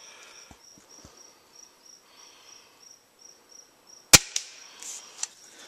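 One sharp crack about four seconds in: a single shot from a scoped pump-up airgun. Under it an insect chirps steadily, about three times a second.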